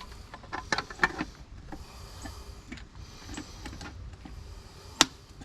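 Scattered small clicks and taps of hands and tools working on an electrical switch box, with one sharp click about five seconds in.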